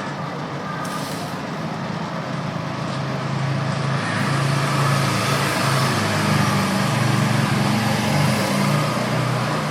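A motor running steadily with a low hum and a hiss over it, getting louder about four seconds in.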